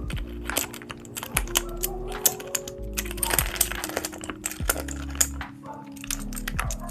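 Typing on a mechanical keyboard: a quick, irregular run of keystroke clacks, densest about three seconds in, over background music.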